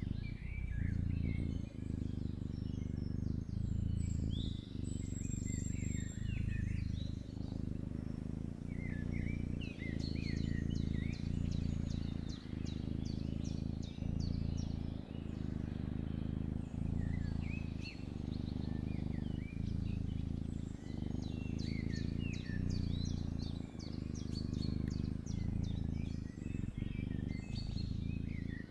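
Kitten purring steadily, the low rumble breaking briefly about every second and a bit as it switches between breathing in and out. Small birds chirp and twitter in the background.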